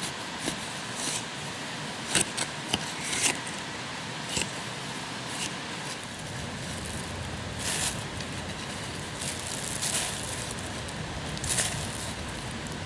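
Campfire embers and charcoal crackling and clinking in irregular sharp clicks over a steady hiss, a few louder snaps around two to three seconds in and again near the end.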